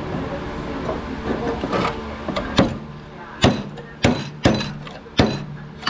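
A series of about six sharp hammer blows on metal, starting about halfway through and spaced unevenly, roughly one to two a second, over a steady low hum.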